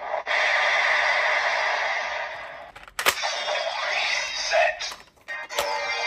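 Electronic sound effects played through the speaker of a DX Kamen Rider Geats transformation belt toy with the Fantasy Raise Buckle: a long hissing effect, then a sharp plastic click about three seconds in, more effects, and another click shortly before a new tune starts near the end.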